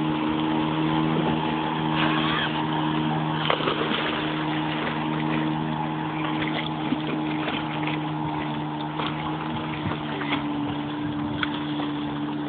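Motorboat engine running steadily at towing speed, a constant low hum, over a steady rush of water and wind noise.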